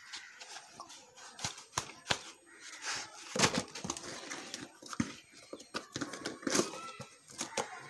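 Cardboard shipping box being folded shut by hand: flaps creasing and rubbing, with an irregular run of sharp crackles and taps, the loudest about three and a half seconds in and again at six and a half.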